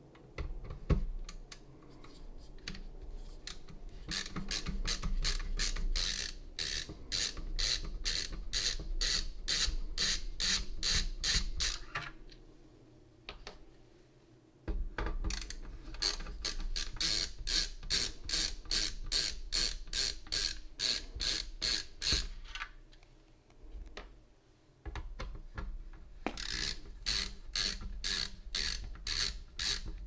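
Hand screwdriver's ratchet clicking in quick even runs, about three clicks a second, as small screws are backed out of a mini PC's frame; three runs with short pauses between them, and a single sharp tap about a second in.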